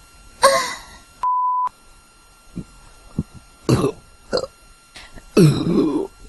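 Human burps in quick succession: a short burp about half a second in, a longer, louder burp near the end, and smaller burps and gulps in between. A steady beep tone of about half a second sounds just over a second in.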